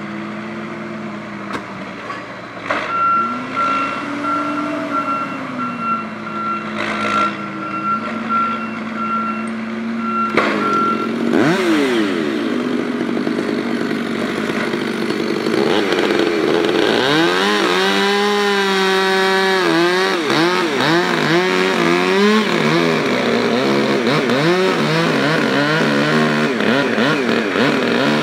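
Forestry machine engines running, with a repeating short beep for several seconds. About ten seconds in a chainsaw starts and revs, and from about halfway it is cutting into a beech trunk, its pitch rising and falling under load.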